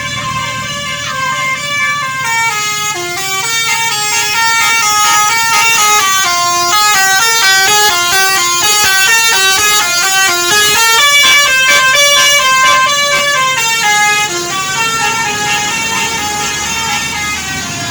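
Bus basuri melody horns (telolet-style multi-note air horns) playing rapid tunes over one another, several at once. The notes step up and down in quick runs, swell to their loudest about halfway through, then ease off.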